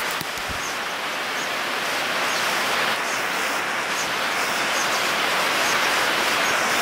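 Steady rain falling, an even hiss that grows slightly louder.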